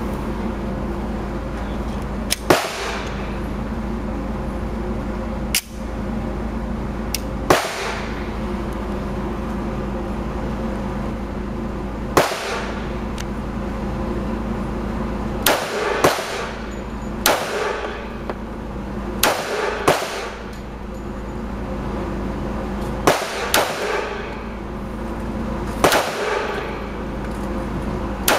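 Heckler & Koch USP .45 pistol fired one shot at a time: about a dozen sharp shots at uneven intervals, some in quick pairs, each with a brief echo off the range walls. A steady low hum runs underneath.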